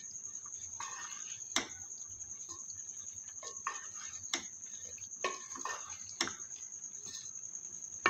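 Wooden spoon stirring shredded cabbage and minced meat in a steel pot: soft scraping, rustling strokes, with three sharp knocks of the spoon against the pot. A steady high-pitched whine runs underneath.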